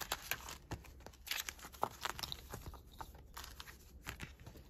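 Planner paper inserts and plastic pages being handled, giving a run of small crinkles, rustles and light clicks.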